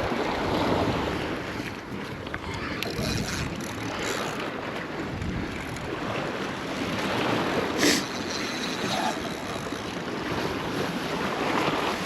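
Surf washing in and wind buffeting the microphone in a steady rush, with one short sharp click or knock about eight seconds in.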